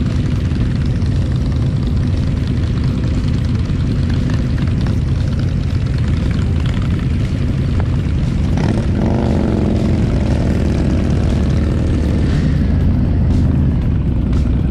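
Several motorcycle engines running close by in a steady low rumble. About eight and a half seconds in, one engine's note rises and falls briefly.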